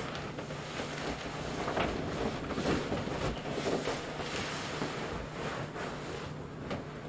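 Plastic rustling and vinyl rubbing: a plastic raincoat brushes against an inflated vinyl paddling pool as the pool is pushed and squashed, in uneven swells of noise.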